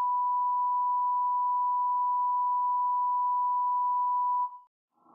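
Steady 1 kHz bars-and-tone reference beep, one unbroken pure tone that cuts off about four and a half seconds in.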